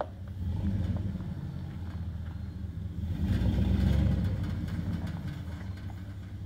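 2002 GMC Sierra 1500's 5.3-litre V8 with dual exhaust running at low revs as the lifted truck crawls over rocks, getting louder for about a second around three seconds in.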